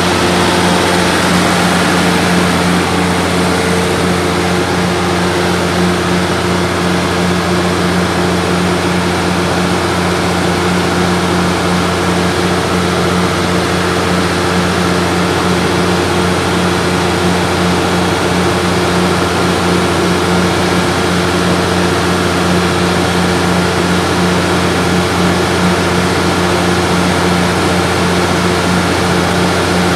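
Cummins QSK23-G7 inline-six diesel engine of a 750 kW generator set running steadily at its rated 1800 rpm, unloaded on a test run. A constant deep hum with an even roar over it, no change in speed.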